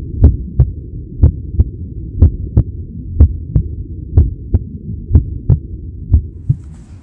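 Heartbeat sound effect: about seven double thumps, one pair a second, over a steady low hum.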